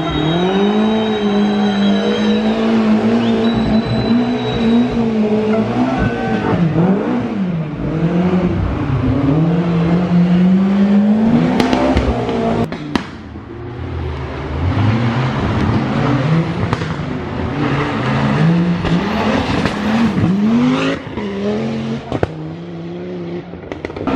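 Rally car engines revving hard through corners, the pitch rising and falling again and again with gear changes and lifts, a BMW M3 at first. After a change about halfway through, another car follows with a run of sharp cracks among the engine note.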